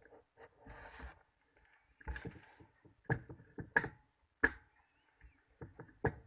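Irregular sharp clicks and knocks from handling a sewing machine's shuttle mechanism by hand during timing adjustment, with a brief rustle about a second in.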